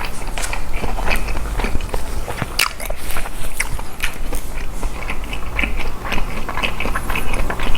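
Close-miked eating: a person biting and chewing a mouthful of boiled pork and fresh napa cabbage kimchi, with wet mouth smacks and a quick, irregular run of crisp clicks.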